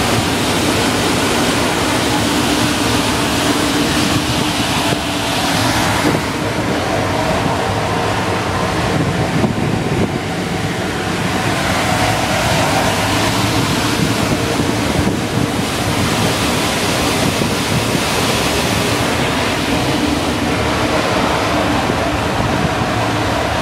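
Steady whir and hum from JR Freight EF210 electric locomotives standing at a platform with their cooling blowers running.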